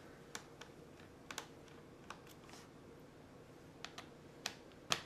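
Light, irregular clicks and taps of a small screwdriver working the screws out of a laptop's plastic screen bezel, with the sharpest click near the end.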